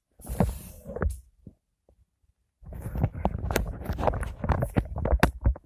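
Small plastic mini Rubik's cubes handled and knocked together: rapid clicks and clacks with dull thumps, stopping for about a second in the middle before the clattering starts up again.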